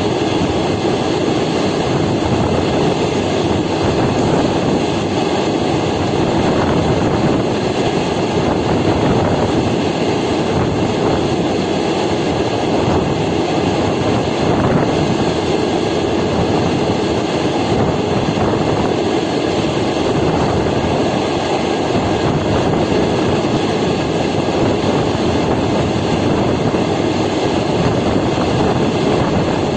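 Train running along the track: a steady rumble of wheels on rails that holds an even level throughout.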